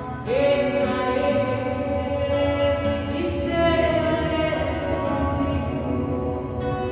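A slow hymn sung in long held notes, one of them entering with a short upward slide about a third of a second in.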